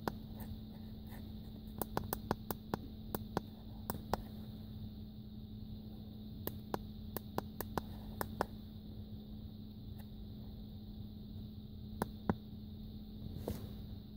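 Plastic buttons of a handheld OBD2 code reader being pressed, a string of short sharp clicks in quick runs and then a few single clicks, over a steady low hum.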